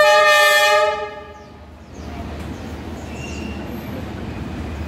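Horn of the approaching D19E-903 diesel-electric locomotive: one loud blast, a chord of several tones, about a second long. After it fades, the low rumble of the oncoming train grows steadily louder.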